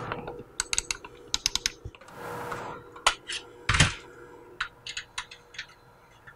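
Rapoo 7200M wireless mouse being clicked and handled: a run of sharp button clicks, some in quick pairs, a brief rubbing scrape, one heavier knock about halfway, then more scattered clicks.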